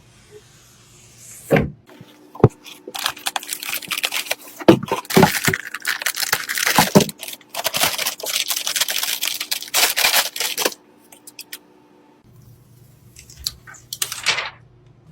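Computer parts being handled and fitted together: a run of quick plastic-and-metal clicks and rattles, densest in the middle, with a few separate knocks before and a brief scrape near the end.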